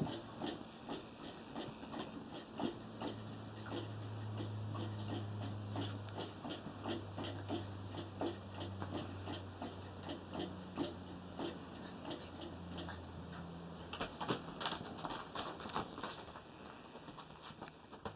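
Golden retriever puppies play-fighting on a blanket: a steady patter of small quick clicks and taps from their paws and claws, busiest near the end, over a low steady hum.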